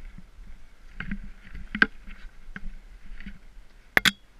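Skis sliding and scraping over snow with scattered sharp clicks and knocks, the loudest a quick double knock near the end.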